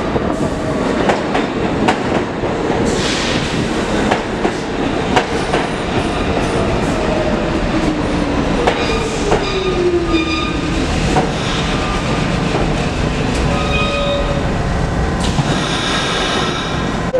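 R46 subway train pulling into the station and slowing: wheels clicking over rail joints, a motor whine falling in pitch about halfway through as it slows, and brakes squealing near the end as it comes to a stop.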